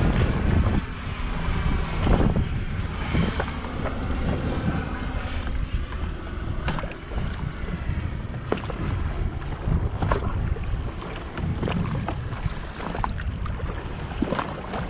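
Kawasaki Ultra 300LX jet ski running on open water, with wind buffeting the microphone and a few sharp knocks scattered through it.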